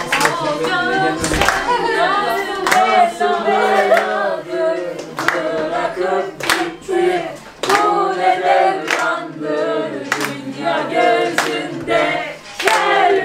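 A group of people singing a Turkish song together, with hand claps keeping time about every second and a bit.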